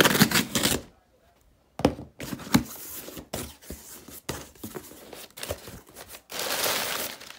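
A cardboard shipping box being torn open by hand, with a loud ripping noise at the start and a few knocks as the flaps are handled. Near the end the crumpled kraft packing paper inside rustles loudly.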